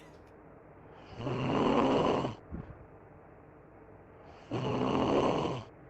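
A man snoring in his sleep: two long snores, each about a second and a half, roughly three and a half seconds apart, with a faint steady hum between them.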